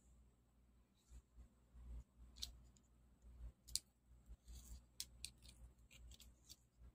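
Faint, scattered clicks and light scrapes of a utility knife working along a TV's LED backlight strip, about a dozen small sharp ticks at uneven intervals, the loudest a little before four seconds in.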